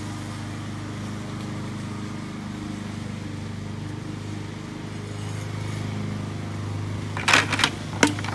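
A steady low hum, then a quick cluster of sharp knocks and rustling about seven seconds in, as the honey bee swarm is knocked off the branch into a box.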